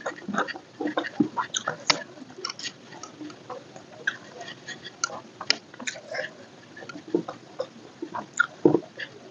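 A person chewing food close to the microphone, with frequent short mouth clicks and smacks at irregular intervals.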